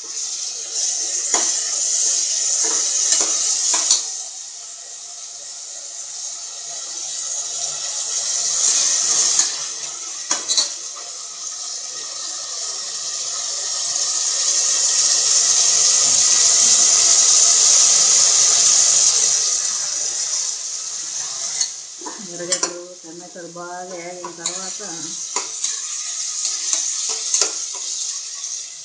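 Sliced onions, tomatoes and green chillies sizzling as they fry in an aluminium pressure cooker, stirred with a metal spoon that scrapes and knocks against the pot. The sizzle swells loudest around the middle.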